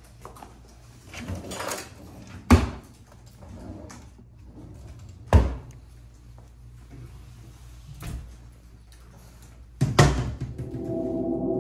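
Doors and kitchen cupboard doors being opened and banged shut: three sharp bangs with softer handling and rustling between them. Near the end a ringing gong-like musical tone comes in.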